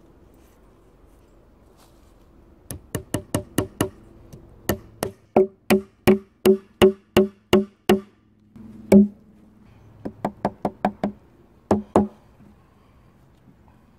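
Nails being driven into dead-wood poles with the back of an axe: runs of quick, ringing strikes about three a second, broken by short pauses, with one single loudest blow about two-thirds of the way through.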